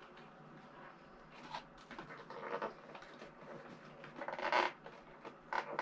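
Rustling and scraping of a model horse's box packaging as hands work it loose, with scattered small clicks and louder crinkles about two and a half and four and a half seconds in.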